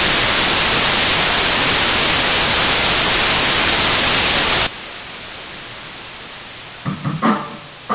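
Loud, steady hiss of TV-style white-noise static that cuts off suddenly about five seconds in, leaving a quieter hiss. Near the end a live rock band comes in with a few short, loud hits.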